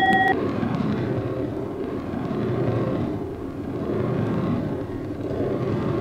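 A short bell-like ding right at the start, then a steady low rumbling noise that swells and fades slightly.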